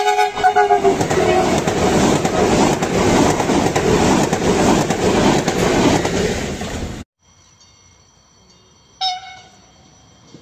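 Stadler electric multiple unit passing at speed, about 140 km/h. Its two-tone horn drops in pitch as it goes by, then a loud rush of air and rhythmic wheel clatter runs for about seven seconds. The sound then cuts off abruptly to quiet, with a short tone about two seconds later.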